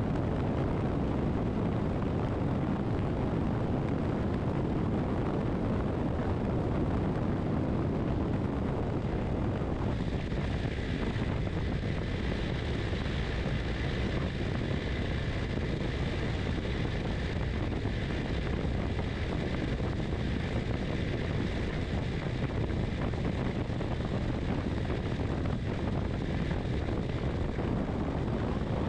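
Motorcycle cruising at steady highway speed: wind rushing over the microphone with engine and road noise underneath. About ten seconds in, a higher whine joins and holds.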